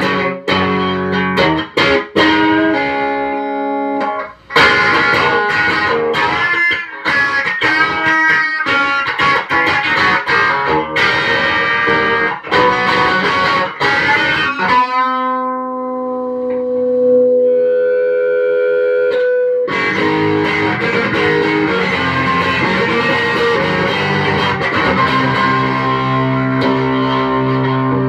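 Electric guitar with a dual hot-rail ceramic pickup, played with the selector in the middle position: quick picked notes and chords, then a few held notes left ringing about halfway through, then more sustained notes and chords.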